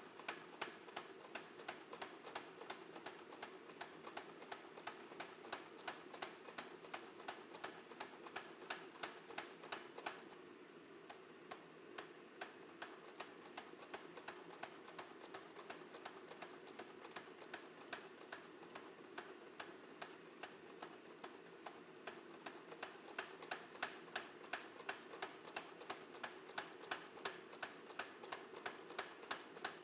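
Hammer blows on steel at the anvil while forging a nakiri blade, a steady rhythm of sharp strikes about three a second, with a brief lull about ten seconds in. A steady low hum runs underneath.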